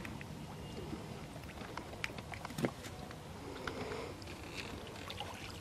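Faint, irregular clicks and taps of hands handling a baited hook line in a wooden boat, over a low steady hiss, with a couple of sharper taps a little past the middle.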